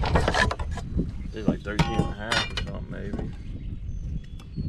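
Clicks, rattles and knocks from a caught bass being handled on a bass boat's deck, thickest in the first second and thinning out after.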